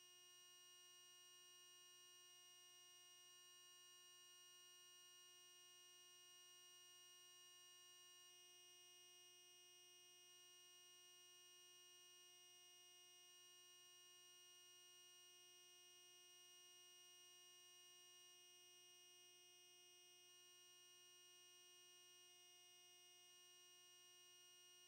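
Near silence with only a faint, steady electronic hum made of several constant tones.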